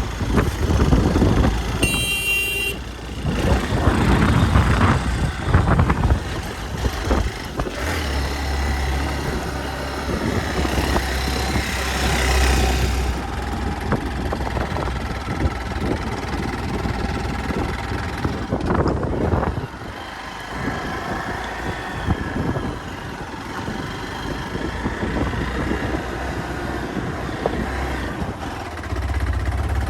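Hero XPulse 200's single-cylinder engine running as the motorcycle rides a rough off-road track, with a heavy low rumble throughout. A brief high toot comes about two seconds in.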